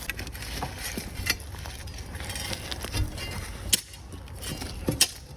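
A few scattered light knocks and clinks, about four, over a low steady rumble.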